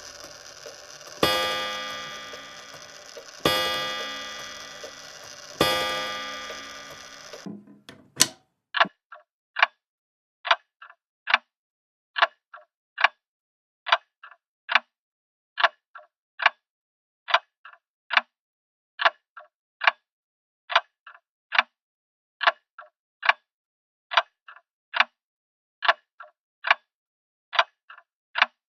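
Grandfather clock striking three times on its bell, each stroke about two seconds apart and ringing out. After the third stroke dies away, the pendulum escapement settles into a steady, even tick-tock at roughly one beat a second.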